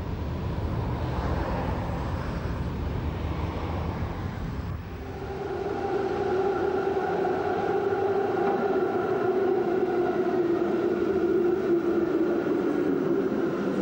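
Electric tram running on its tracks: a low rumble, then from about five seconds in a steady whine with several pitches over the running noise.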